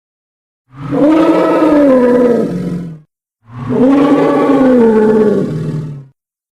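Custom kaiju roar sound effect for Titanosaurus, built from layered animal and monster recordings: two near-identical roars about two and a half seconds long, each dropping slightly in pitch at its end, with a brief silence between them.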